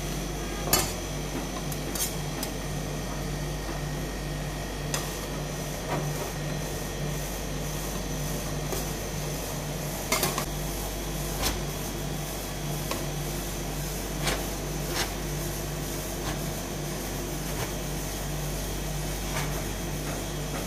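Steel spatulas scraping and clinking on a steel ice cream roll cold plate as the frozen layer is scraped up into rolls. The sharp clinks come at irregular moments, about a dozen in all, over a steady low hum.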